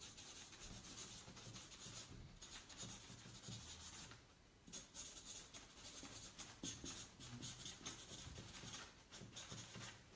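Marker drawing and writing on flip-chart paper: a faint run of short, irregular strokes, pausing briefly about four seconds in.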